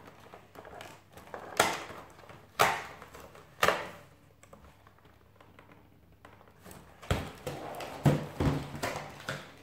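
A cardboard advent calendar door being poked and pried open with a pen: three sharp taps about a second apart, then a quieter spell and a few more knocks and handling noises near the end.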